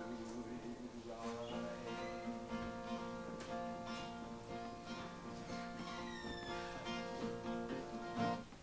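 Acoustic guitar playing an instrumental passage without singing, plucked notes and chords left ringing.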